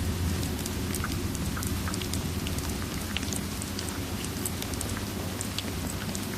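Steady rain ambience mixed with a crackling fireplace: an even hiss over a low rumble, with scattered small sharp pops and ticks throughout.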